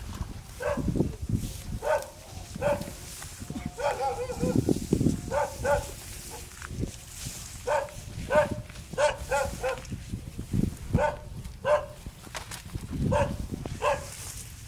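Many short, high-pitched animal calls, singly and in quick runs of two to four, repeated all through, over rustling and trampling through dense vegetation.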